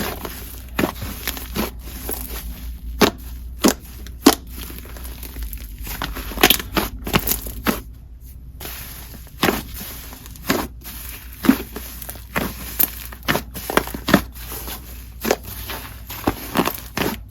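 Soft, inflatable clay slime with bingsu beads being squeezed and stretched by hand, giving irregular sharp pops and crackles, a few a second.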